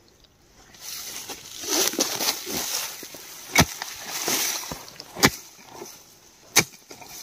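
Short-handled hand hoe digging out a rat burrow: soil and dry grass and weeds rustle and scrape as the blade is dragged through them. Three sharp knocks of the blade follow in the second half, about a second and a half apart.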